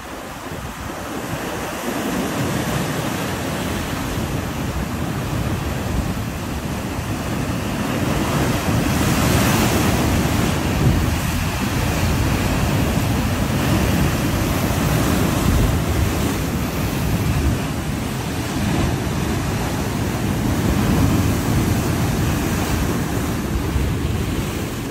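Heavy surf breaking and washing over a rocky shoreline, a rough sea stirred up by Hurricane Idalia, with wind buffeting the microphone. The rush of water grows louder after the first couple of seconds, with a surge of hiss about nine to ten seconds in.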